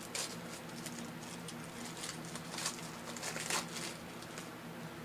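Sports trading cards being handled and slid against one another, a few short rustling scrapes with the loudest two in the second half, over a steady low hum.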